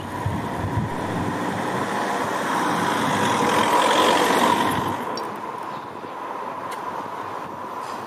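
Street traffic: a vehicle passing close by, its noise swelling to a peak about four seconds in and falling away by about five seconds, then a lower steady traffic hum.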